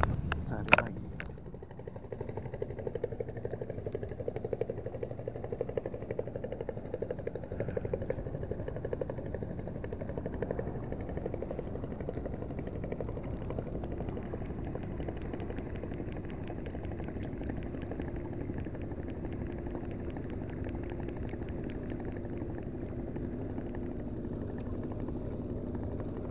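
Small 1000-size spinning reel cranked steadily to retrieve a light spoon lure, its gears giving a fast, even ticking whirr. A sharp click sounds about a second in.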